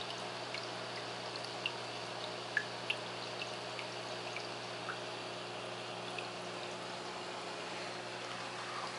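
Reef aquarium filtration running: water pouring and trickling steadily, with a low electrical hum from the pumps and a few small pops scattered through it.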